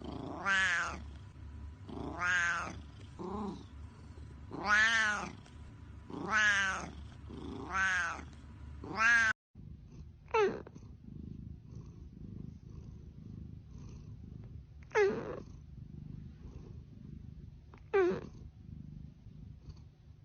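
Domestic cat meowing: a run of about seven long, drawn-out meows that rise and fall in pitch. Then, after a sudden break, four short, falling meows a few seconds apart.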